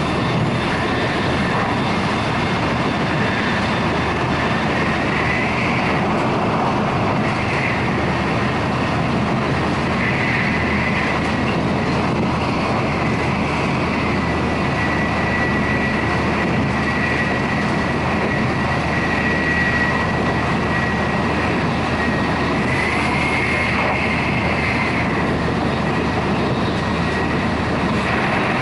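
Shinkansen bullet train running at speed: a steady rumble with a thin, high whine that swells and fades at times.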